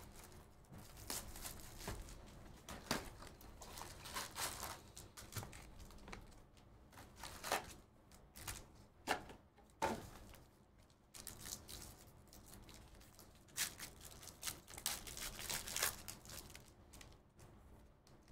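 Trading-card box and foil packs being ripped open by hand: irregular bursts of tearing and crinkling wrapper, with a few sharp clicks.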